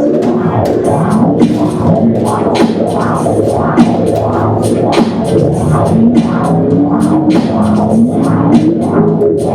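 Live band music with a steady drum beat, about two beats a second, over a dense droning, sliding melody.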